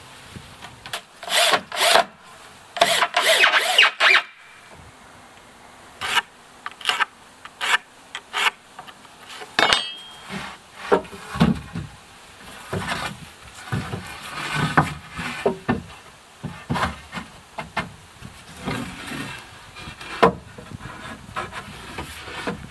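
Woodworking by hand: two loud bursts of sawing into wood early on, then scattered knocks and scrapes of lumber being handled and fitted.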